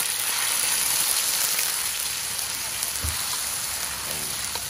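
Blended lemongrass, garlic, ginger and shallot paste sizzling steadily in hot oil in a wok, stirred with a metal spatula, with a soft knock about three seconds in. The paste is being fried until the oil separates from it.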